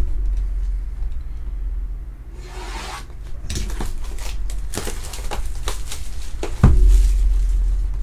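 Hands tearing open and scraping at a trading-card hobby box's wrapping and cardboard, with short crinkly tearing and scraping strokes starting about two seconds in and one loud knock near the end, over a steady low rumble.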